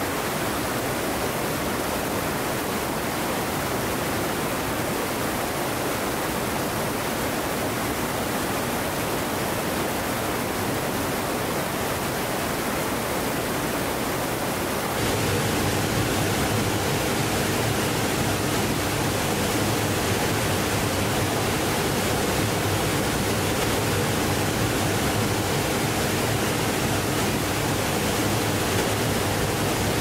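Steady rush of falling water from a waterfall on a mountain creek. About halfway through it turns abruptly louder and fuller.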